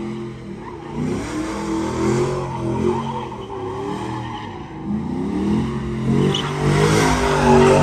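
Chevrolet Silverado pickup's engine revving hard and repeatedly, its pitch rising and falling as the truck spins in circles, getting louder near the end.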